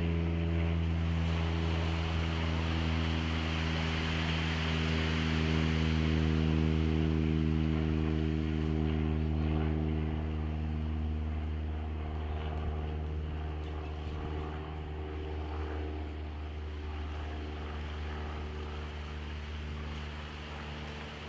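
A passing engine drones steadily, loudest about six seconds in, then slowly fades away over the second half.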